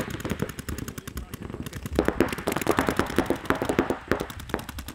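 Paintball markers firing in rapid strings, several at once, in a dense crackle of shots. The fire thins out about half a second in and picks up heavily again from about two seconds in.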